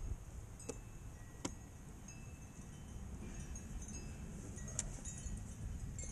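Light metallic clicks and clinks, a few scattered taps with a short ringing tone, from a metal hose clamp and hand tools being handled.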